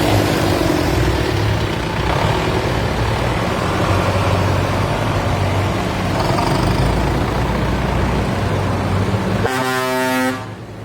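Tractor engines running steadily, with one horn blast near the end.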